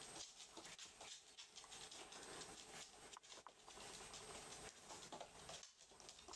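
Faint scattered pattering and clicking of rough collie puppies' claws on a hard wooden floor as they scamper about and play.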